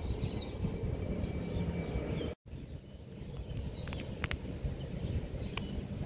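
Outdoor ambience: a steady low rumble with scattered short bird chirps. The sound drops out for an instant a little over two seconds in, and a few quick, sharp chirps come near the end.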